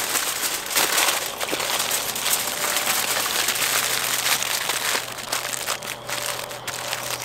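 Aluminium foil crinkling and crumpling as it is folded into a pouch around food, dense and crackly, easing off after about five seconds.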